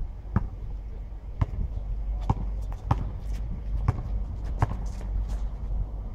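A basketball being dribbled on an outdoor asphalt court: about six sharp bounces at an uneven pace of roughly one a second, stopping about five seconds in.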